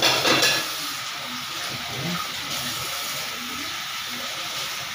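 Kitchen tap running into a stainless-steel sink while something is rinsed under it, with louder splashing at the start.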